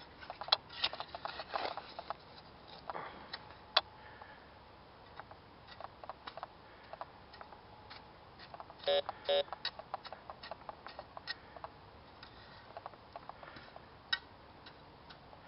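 Hands and a digging tool working through loose soil and debris in a freshly dug hole, with scattered clicks, scrapes and rustles. About nine seconds in come two short electronic beeps from the Bounty Hunter 3300 metal detector.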